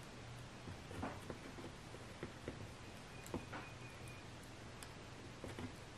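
Faint, scattered small clicks and handling noises of a steel piston ring being worked into its groove on a piston by hand, over a low steady hum.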